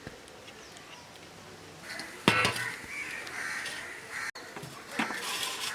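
Crows cawing outdoors, with a sharp clank about two seconds in.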